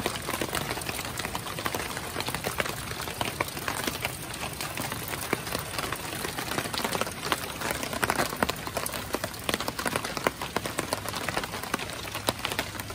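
Steady rain falling, with many separate drop hits close by.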